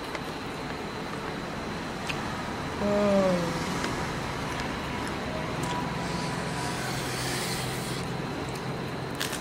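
Steady background noise, with a short hum from a person's voice that falls in pitch about three seconds in.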